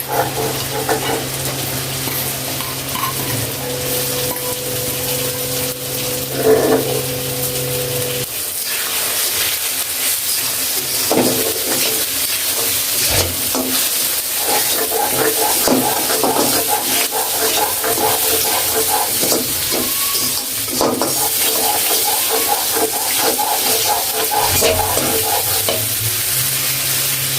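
Sliced onions and ground spices sizzling in hot oil in a kadai, stirred and scraped with a spatula. A steady low hum underneath stops about eight seconds in.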